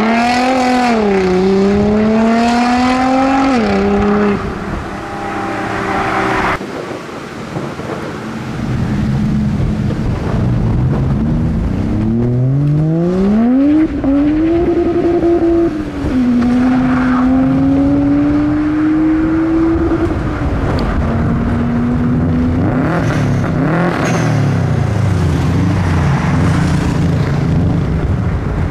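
Modified cars accelerating away one after another, engines revving up and dropping back as they change gear. One engine revs hard about twelve seconds in, and a lower engine drone runs through the later part.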